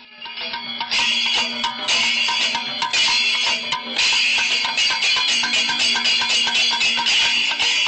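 Kerala temple percussion ensemble (melam), with ilathalam brass hand cymbals clashing in a dense, steady beat and ringing over the drums. It rises in over the first second.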